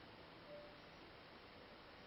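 Near silence: a steady hiss, with one faint, short note about half a second in.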